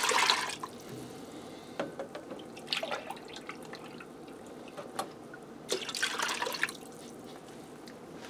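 Milk poured from a measuring cup into a pot of hot broth, splashing and gurgling: one pour right at the start and a second about six seconds in, with a smaller splash between.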